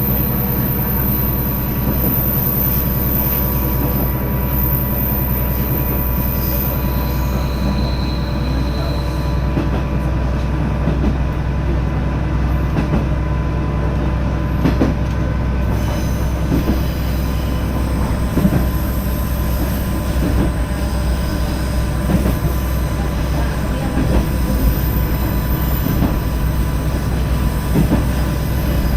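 Koumi Line railcar running, heard from inside the train: a steady low drone with irregular clicks and knocks from the wheels on the track, more of them in the second half.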